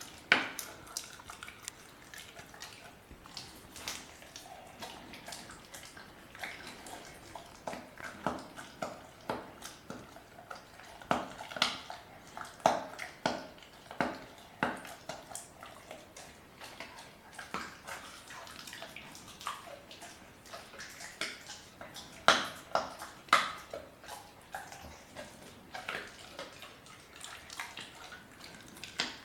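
German Shepherd puppy chewing a raw chicken quarter: irregular wet smacking and crunching of bone, with a few sharper cracks.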